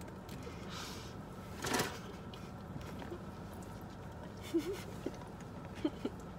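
Quiet car-interior background with a steady low hum, a short rustle about two seconds in and a few small clicks and brief faint sounds from people handling things in their seats.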